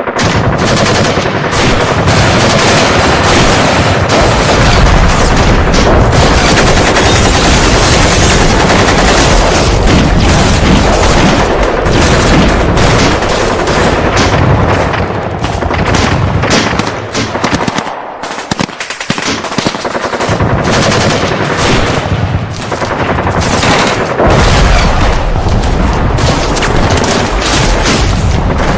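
Heavy gunfight sound effect: dense, continuous automatic gunfire with many overlapping shots. It thins out for a couple of seconds a little past the middle, then builds up again.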